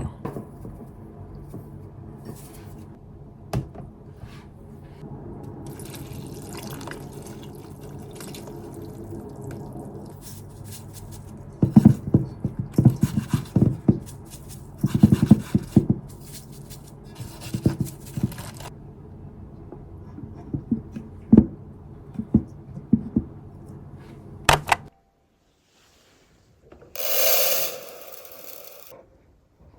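Water splashing and dripping in a basin as napa cabbage is soaked in salt brine, with irregular splashes clustered in the middle, over a steady low hum. It stops abruptly near the end, and a short rush of noise follows.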